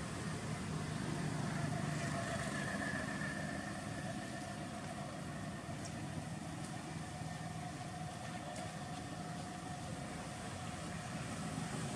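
Steady low mechanical hum, like an engine running at idle, over a constant background hiss, with a few faint high ticks in the middle.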